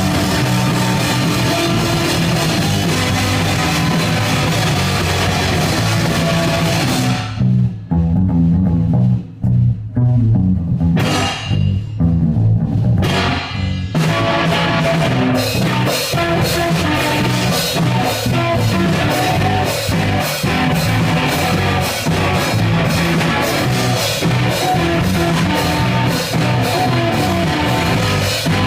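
Live rock band playing electric guitar, bass and drums. About a quarter of the way in the cymbals drop out for a stop-start break of guitar and bass stabs. About halfway through the full band comes back in with steady cymbal hits.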